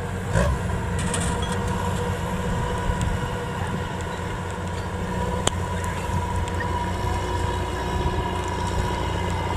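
Kubota DC93 rice combine harvester running steadily: a continuous mechanical rumble with a steady higher tone over it. A single sharp click about halfway through.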